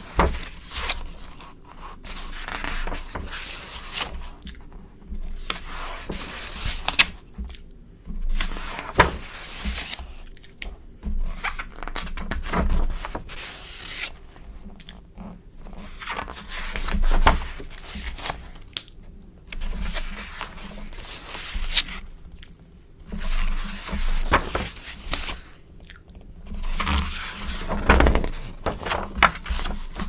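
Glossy magazine pages turned and smoothed flat close to a microphone: irregular swishes, crinkles and scrapes of the paper, with short pauses between page turns.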